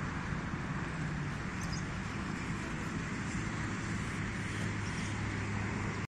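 Outdoor park ambience: a steady low hum with a few faint, brief bird chirps, about one and a half, three and five seconds in.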